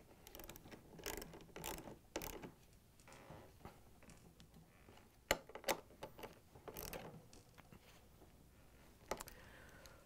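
Ratchet with a 3/8-inch socket tightening the door hinge bolts: faint, irregular bursts of pawl clicking, with a few sharper single clicks in between.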